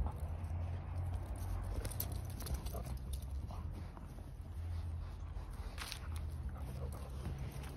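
A Barbet puppy at play on grass, close to the microphone: short scattered noises from its movements over a steady low rumble.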